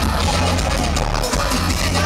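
Live bouyon band music from a street-parade sound truck, played loud with heavy, steady bass and heard through a poor recording.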